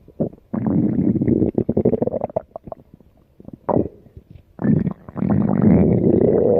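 Stomach growling: long rumbles broken by quick crackly pops. One stretch starts about half a second in and lasts about two seconds, a short growl comes a little past the middle, and another long growl fills the last two seconds.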